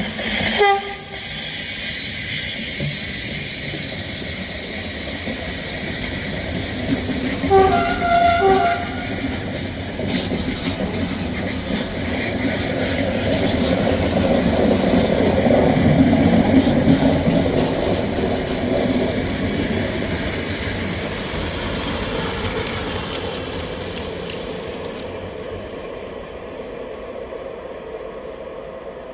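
A train passing by: a steady rumble and rolling wheel noise that builds to its loudest about halfway through, then slowly fades. The locomotive's horn gives a short blast at the start and two short blasts about eight seconds in.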